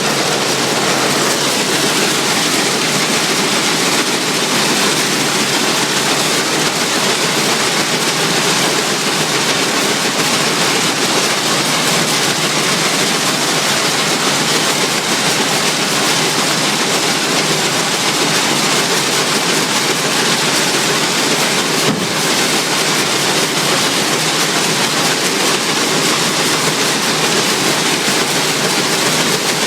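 Allis-Chalmers All-Crop 72 pull-type combine running while harvesting wheat: a loud, steady mechanical rattle and rush with no change in pace.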